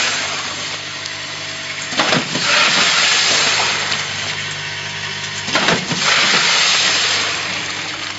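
Vertical packing machine for coffee bean granules running through its bag-making cycle: a sharp clack about every three and a half seconds, each followed by a long hiss, over a steady motor hum.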